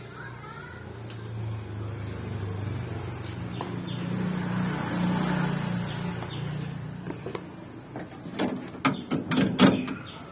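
A low engine hum swells and fades over several seconds, then a quick run of loud, sharp knocks and clatter comes near the end.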